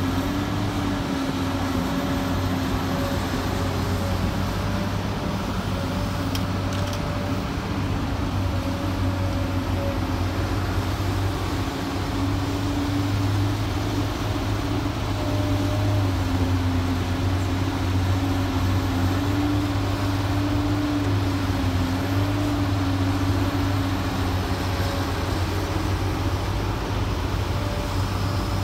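Komatsu PC200LC-8 excavator's six-cylinder diesel engine running steadily under work, with a whine that wavers slightly in pitch over the engine drone.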